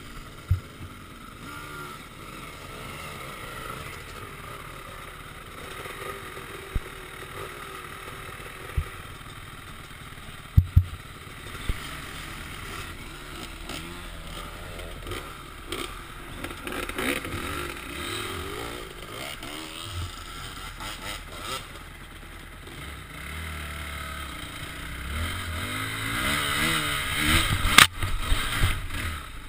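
Dirt bike engine heard from a helmet camera, revving up and down as the bike is ridden over a rough trail, with sharp knocks and clatter from the bumps. The engine gets louder and busier over the last few seconds.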